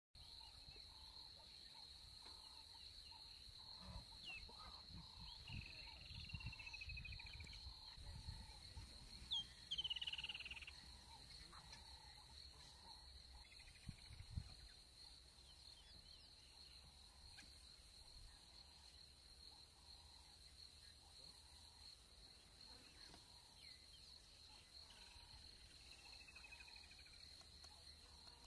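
Faint outdoor bush ambience: a steady high insect drone, with a soft call repeating about once a second and a few falling bird-like whistles. There is a brief louder call about ten seconds in, and some low rumbling in the first half.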